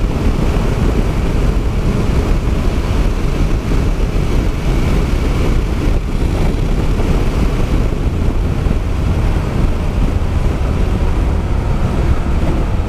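Steady wind rush and road noise of a Honda NC 750X motorcycle riding at highway speed, with the wind hitting the microphone, unbroken throughout.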